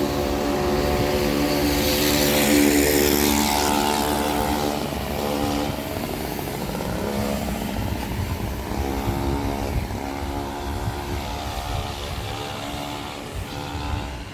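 A motor vehicle's engine passing, loudest and joined by a rushing hiss about two to three seconds in, then an engine hum fading and returning later.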